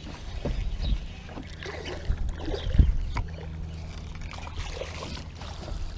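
Knocks and bumps of gear being handled in a small fishing boat over a steady low hum, the loudest thump about three seconds in.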